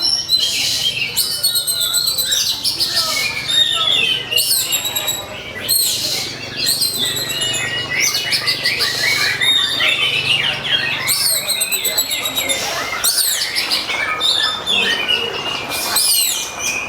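Oriental magpie-robin (kacer) singing non-stop in a loud, fast, varied stream of whistles, rattling trills and steep sweeping notes: the excited, fighting-style song that keepers play to provoke other kacers into singing.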